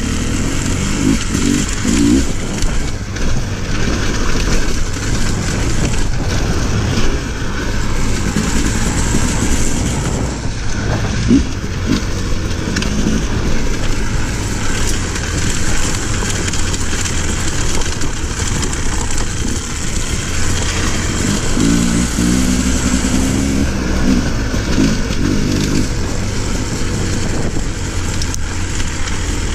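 Off-road motorcycle engine running under load on a rocky trail, its revs rising and falling as the rider works the throttle, over a steady noisy rush.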